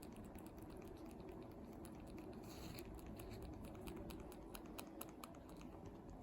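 Young kitten suckling, making a run of quick, irregular small wet clicks, with a steady low purr underneath.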